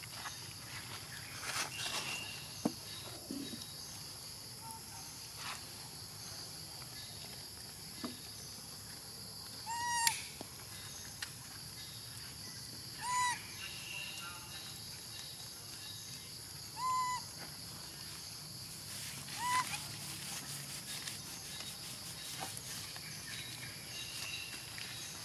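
Four short, clear, pitched animal calls, each a brief rise-and-fall, spaced a few seconds apart over a steady high-pitched background drone, with a few faint clicks.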